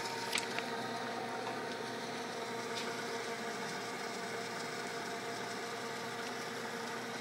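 Steady buzzing hum from a powered-up 3-axis CNC Bridgeport knee mill, holding a few fixed tones without change.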